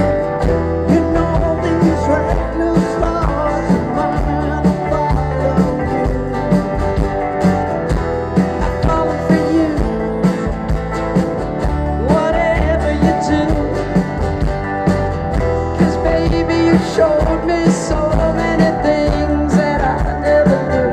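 Live pop-rock band playing over a large outdoor PA: a steady drum beat under electric bass and melody instruments, heard from the crowd.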